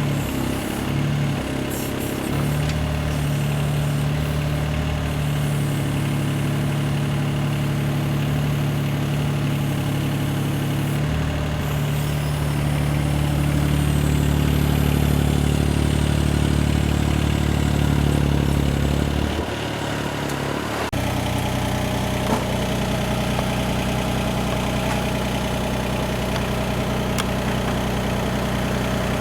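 An engine running steadily, its note shifting up and down a few times, then changing abruptly about two-thirds of the way through.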